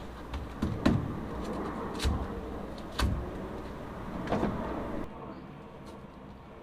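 Work noise inside a stripped truck cab: four knocks, roughly a second apart, over a steady background noise. The background drops away suddenly about five seconds in.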